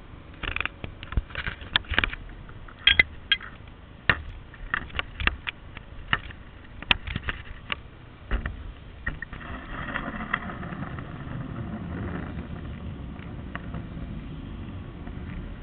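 Camera handling noise: a string of sharp knocks and clicks against the camera body, then from about nine seconds in a steady low rushing noise.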